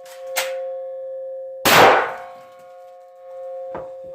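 .308 rifle firing a single shot about one and a half seconds in, the crack trailing off over about a second. A steady two-note tone runs underneath, with faint clicks near the start and near the end.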